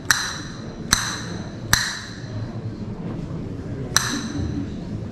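Castanets struck singly, four sharp clicks spaced unevenly, each with a brief high ring.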